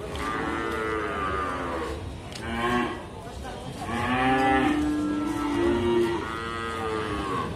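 A young cattle calf mooing repeatedly, several drawn-out calls one after another.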